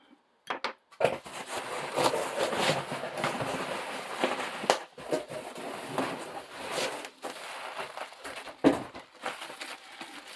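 Packaging rustling and crinkling as a parcel is handled and unwrapped, with many sharp crackles, starting about a second in.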